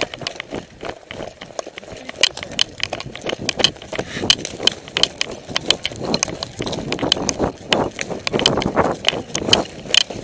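Footsteps of a person on foot in woodland, with crunching and clicking underfoot and from carried gear, picking up into a quicker, regular stride in the second half.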